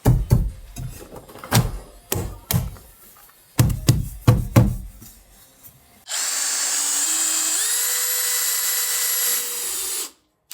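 A run of sharp knocks, unevenly spaced, for about six seconds, then a power drill running for about four seconds. The drill's whine steps up in pitch partway through, and it stops suddenly.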